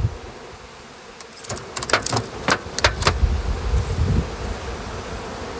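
Honeybees buzzing in a faint steady hum around the hives, with a quick run of sharp clicks and knocks a second or two in and a low rumble just after.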